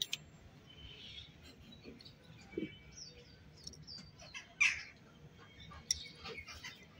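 Light clicks and small metallic scrapes of brass parts and a coil spring as a gas fryer's gas valve is taken apart by hand, with a few short high chirps, the loudest a little past halfway.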